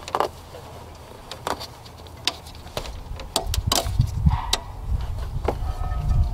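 Scattered clicks and knocks of a tool and metal engine parts as the serpentine belt tensioner is levered down and the belt is worked onto the pulleys; a low rumble comes in about halfway through.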